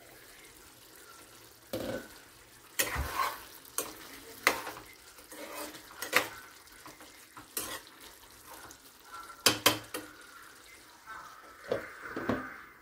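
A spoon stirring a thick curry in a kadai, knocking and scraping against the pan about ten times over a soft simmering sizzle. A glass pan lid clatters as it is lifted off at the start and set back on near the end.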